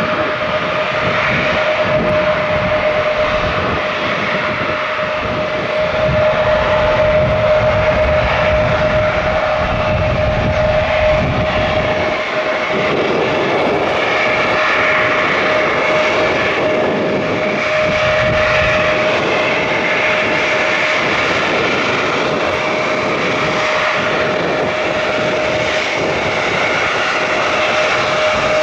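Airliner engines running with a steady whine, while strong wind buffets the microphone in irregular low gusts.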